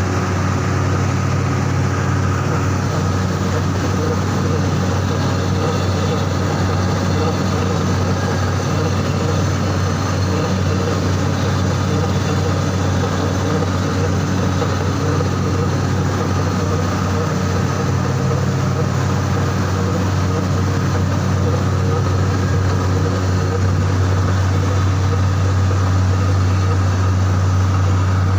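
Steady, unchanging hum of a running machine, with a strong low hum, getting slightly louder near the end.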